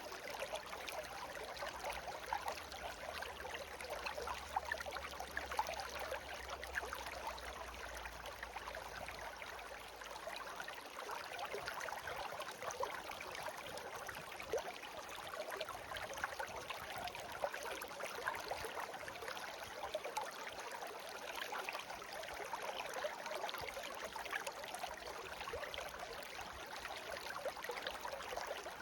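Shallow clear-water stream (a せせらぎ) babbling and trickling over stones in an even, steady flow.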